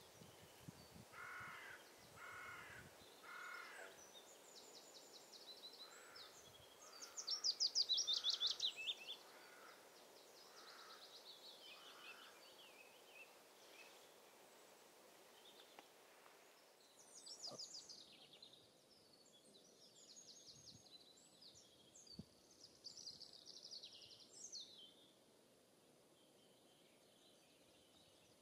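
Faint distant geese honking in short series near the start and again a few seconds later. Songbirds sing high, fast trills over them throughout, the loudest a trill falling in pitch about eight seconds in.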